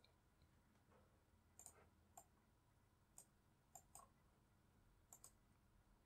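Faint computer mouse clicks, about seven short clicks spread across a near-silent background, some coming in quick pairs.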